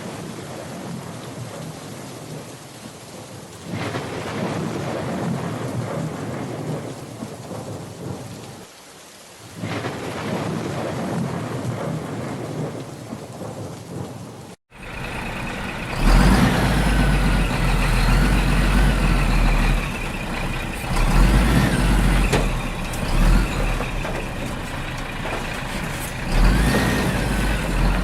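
Steady rain with swelling rumbles of thunder that cuts off suddenly about halfway through. It is followed by a louder mix with heavy deep bass and wavering, gliding tones.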